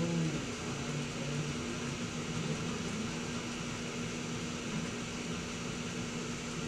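Steady background hum and hiss with a constant low tone, like a fan or air conditioner running. No speech.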